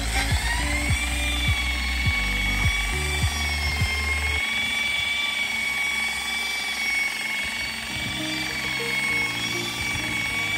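Autoglym Rapid Renovator electric machine polisher buffing a perspex caravan window: a high motor whine rises as it spins up at the start, then holds steady under load. Background music plays underneath.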